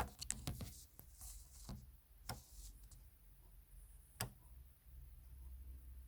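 Scattered faint clicks and ticks from a Brother NX400 sewing machine's needle and hook mechanism being moved: a quick cluster at the start, then single sharp clicks about two and four seconds in, over a low steady hum.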